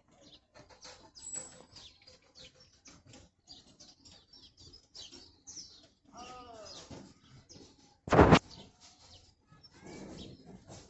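Small birds chirping with scattered faint clicks, then a single loud gunshot about eight seconds in, taken at a dove.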